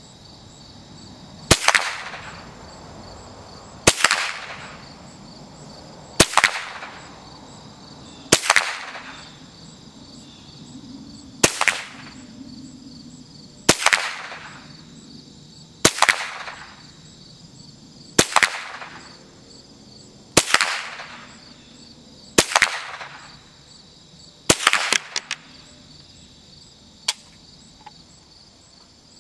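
Ruger SR22 semi-automatic .22 LR rifle with a 16-inch barrel firing eleven single shots about two seconds apart, each with a short echoing tail. Insects chirr steadily underneath.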